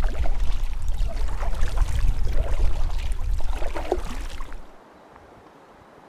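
Water splashing and gurgling over a heavy low rumble, with scattered small clicks. It all stops abruptly about three-quarters of the way through, leaving a faint steady hiss.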